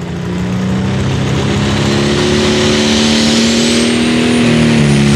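International Harvester super stock pulling tractor's turbocharged diesel engine running hard as it pulls away, its pitch climbing steadily and its loudness building. A high turbo whistle rises over it in the second half.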